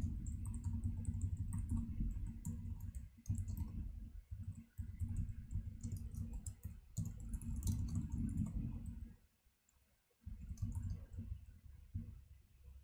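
Typing on a computer keyboard: clicking keystrokes in quick irregular runs over a dull low thudding, with a pause of about a second near the end.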